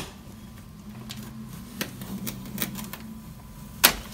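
Sharp clicks and clacks of hard plastic as hands work at the transit latch inside a Formlabs Form 3 resin printer: a loud click at the start, another about two seconds in and one near the end, with lighter ticks between.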